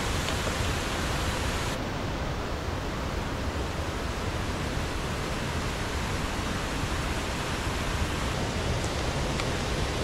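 Steady rushing of a waterfall close by, with no distinct events; the highest hiss drops away about two seconds in.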